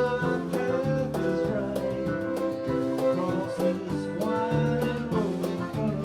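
Live acoustic-style band of guitars, fiddle, bass and percussion playing a country tune with a steady beat, with no singing.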